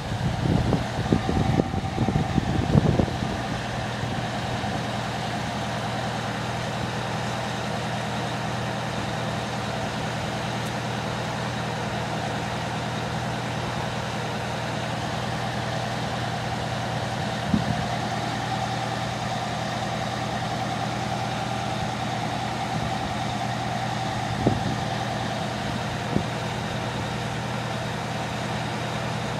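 Fire ladder truck's engine idling steadily, a low even hum. There are some louder knocks and bumps in the first few seconds and a few short sharp knocks later.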